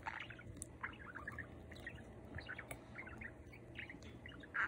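Budgerigar warbling and chattering: a steady run of short, quick chirps and clicks, with a louder burst near the end.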